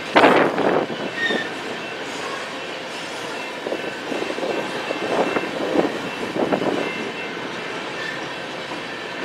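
BNSF freight train's cars rolling past, wheels clacking over the rail joints in groups, near the start and again about four to seven seconds in, over a steady rumble with a faint high wheel squeal.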